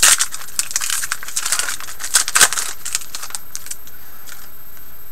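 A trading-card pack wrapper torn open and crinkled by hand: a quick run of sharp crackles that thins out and dies away about three seconds in.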